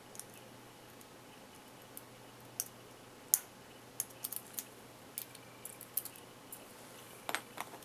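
Small metallic clicks and taps of a hook pick and tension wrench working inside a padlock, coming irregularly, one sharper click about a third of the way in.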